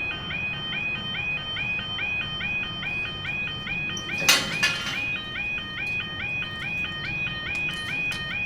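Level crossing audible warning alarm sounding: an electronic two-tone yelp repeating about three times a second, the signal that the barriers are coming down or a train is due. About four seconds in a brief loud clatter sounds over it.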